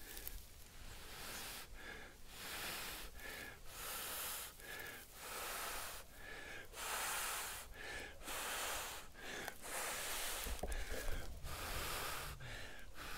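A man blowing hard and repeatedly into a dry-grass tinder nest, about one long blow a second with a quick gasping breath in between. He is coaxing a friction-fire ember into flame.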